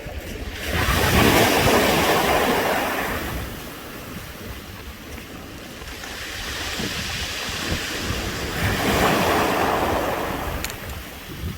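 Waves washing up and drawing back over a beach of smooth round pebbles, rolling the stones against each other in a rattling hiss. Two waves come in, one about a second in and another around nine seconds in, with wind rumbling on the microphone.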